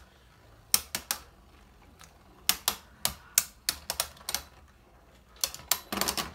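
Two spinning Beyblade tops clashing against each other in a plastic stadium: a string of sharp clicks in small clusters, with a quicker flurry of hits near the end.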